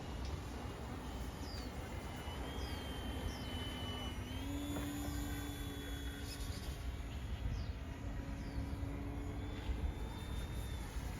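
Motor and propeller of a small radio-controlled model airplane in flight, a distant steady drone that rises in pitch about four and a half seconds in. Birds chirp repeatedly, and wind rumbles on the microphone.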